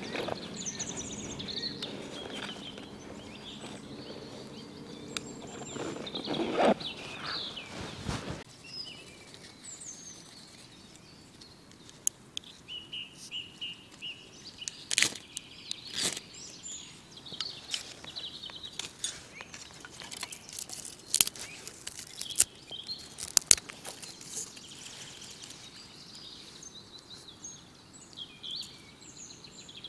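Small birds chirping in the background. For the first eight seconds there is rustling as a belt pouch is opened, then from about twelve seconds in come sharp clicks and scrapes of a knife working a block of tinder on a piece of bark, loudest a little after twenty seconds.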